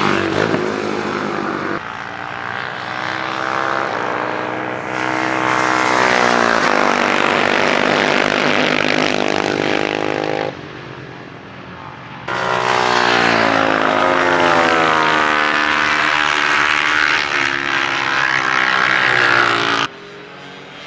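Classic racing motorcycle engines at full throttle on a circuit, rising and falling in pitch as the bikes pass and change gear. The sound changes abruptly several times as one passing bike gives way to another.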